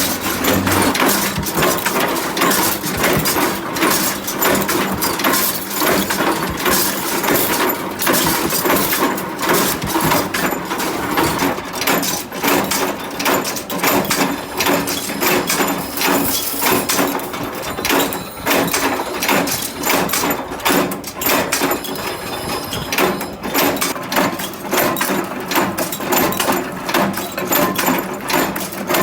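Factory workshop noise: a continuous, dense clatter of knocks and metallic clinks over running machinery.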